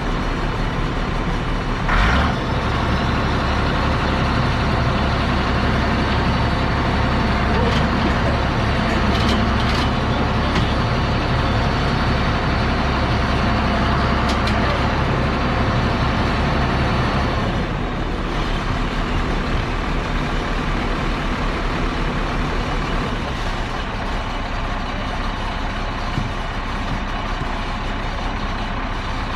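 Heavy vehicle engine running steadily, with a short louder burst about two seconds in, then easing to a lower, duller note about eighteen seconds in.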